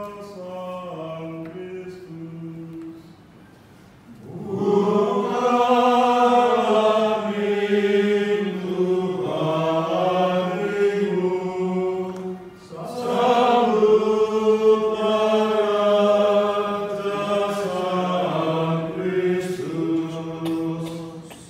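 A male cantor singing the responsorial psalm in a slow, chant-like melody. He sings softly at first, pauses about three seconds in, then resumes much louder, with one short breath break a little past halfway.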